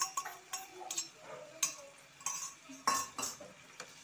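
Irregular metallic clinks and scrapes of a steel bowl and spoon knocking against a wok as a tomato, chilli and soy sauce mixture is scraped into it, then stirring with a wooden spatula.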